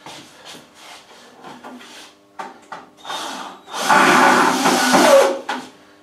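Woodworking on a wooden birdhouse: a run of short scraping strokes, then a loud rasping noise for about a second and a half, about four seconds in.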